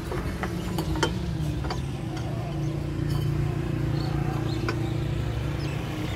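An engine idling with a steady low hum, with scattered light metallic clicks and taps as a spin-on diesel fuel filter is threaded onto its filter head by hand.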